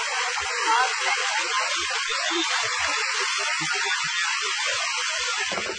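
Fast-flowing floodwater rushing through a street, a steady hissing rush that cuts off near the end.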